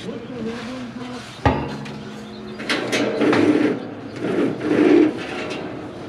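Work noise inside a big square baler's steel bale chamber: a sharp knock about a second and a half in, then scraping and clattering as a man shifts and handles the twine.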